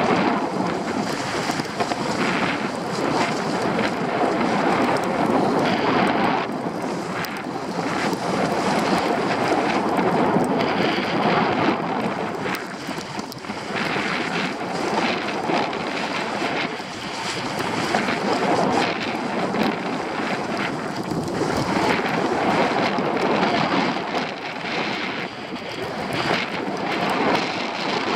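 Wind buffeting the microphone of a camera worn by a skier going downhill, mixed with the hiss and scrape of skis sliding over snow, swelling and easing every few seconds.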